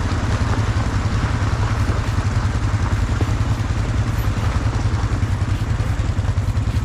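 ATV engine running steadily, heard from the rider's seat.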